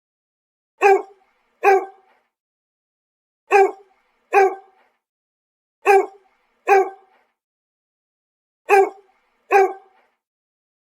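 A basset hound barking: eight deep, short barks in four pairs of two, with a pause of a couple of seconds between pairs and dead silence in between.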